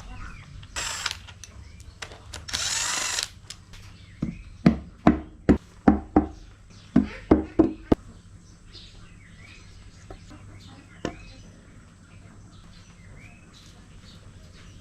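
Mechanic's tools at work on an engine: two short bursts of a power tool, then about a dozen sharp knocks over some four seconds.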